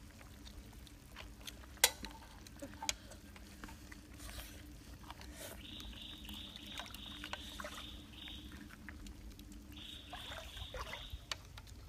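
Cooked clam and mussel shells clicking as they are pried open and handled over a metal pan, with one sharp click about two seconds in. From about halfway a pulsing buzz comes and goes in spells.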